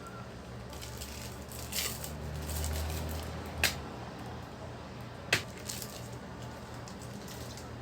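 Quiet room sounds of objects being handled: a low hum swells in the middle, and two sharp clicks come about a second and a half apart.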